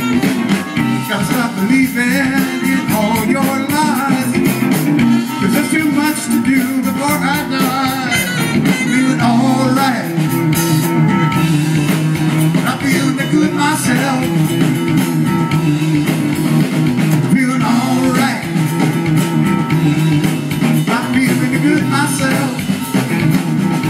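Live band playing amplified through PA speaker stacks: electric guitar, bass guitar and drum kit, with a wavering lead melody over a steady bass line.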